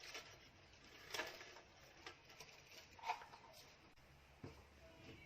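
Near silence with a few faint, soft taps and knocks from handling a cake pan while it is greased with butter.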